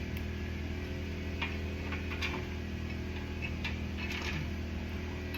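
A few light, irregular metal clicks from bracket hardware (plate, spacers, bolts) being handled and fitted, over a steady low hum.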